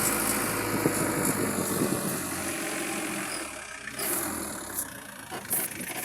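A motor vehicle's engine running, its sound slowly fading over the few seconds.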